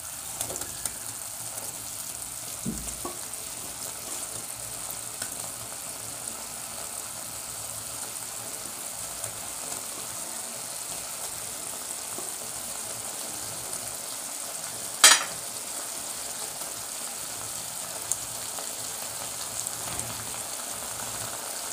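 Fried chicken pieces and onion sauce sizzling steadily in a hot wok, with a few light knocks and one sharp clatter about fifteen seconds in.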